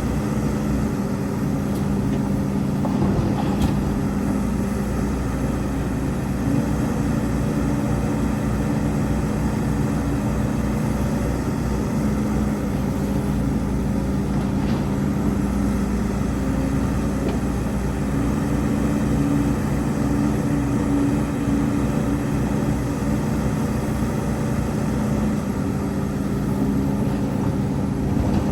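Heavy diesel engine of earthmoving machinery running steadily, its pitch shifting slightly now and then as the load changes.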